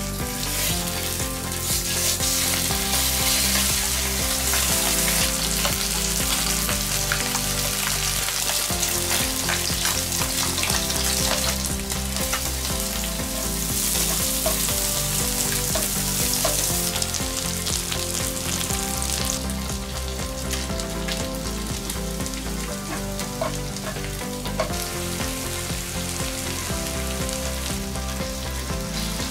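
Chicken thigh pieces sizzling in hot oil in a non-stick frying pan, with sliced onion and shimeji mushrooms added and the pieces turned with tongs. The sizzle is strongest in the first half and settles a little after that.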